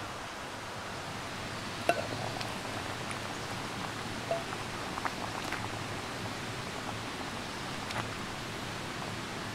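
Water boiling hard in a camping pot on a gas stove: a steady hiss with bubbling, and a few light clinks and pops, the sharpest about two seconds in.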